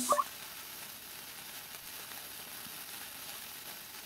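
Burning sparkler giving a steady fizzing hiss, with a short rising blip right at the start.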